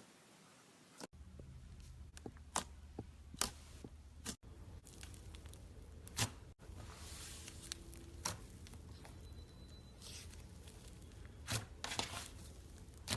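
Slime being handled by hand, giving scattered sharp pops and clicks, about a dozen, over a steady low background noise.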